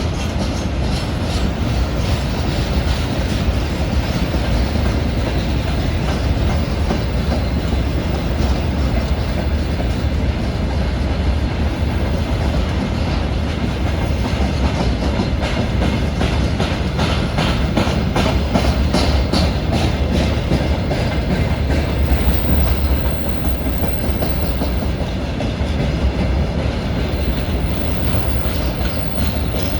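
Freight train rolling past, a steady low rumble with wheels clacking rhythmically over the rail joints.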